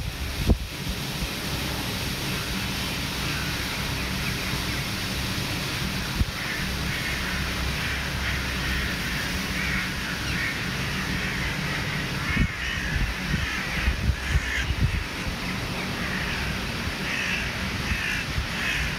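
A flock of crows cawing, many calls overlapping, the chorus growing denser from about six seconds in.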